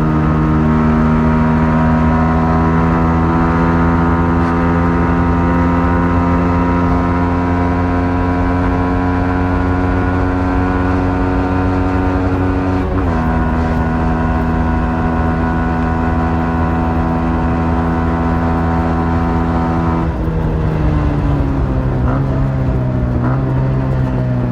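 Yamaha MT-15's 155 cc single-cylinder engine running under way on its stock exhaust, holding a near-steady pitch. Its pitch steps down briefly about halfway through, then falls steadily over the last few seconds as the bike slows.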